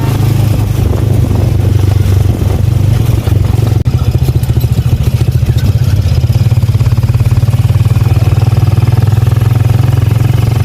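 A motor vehicle's engine running steadily with a low, rapid pulse.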